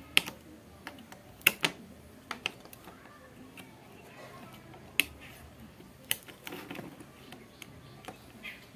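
Scattered sharp clicks and taps of a soldering iron and pointed metal tool against a power-supply circuit board while an optocoupler is desoldered. The loudest come just after the start and a double click about a second and a half in.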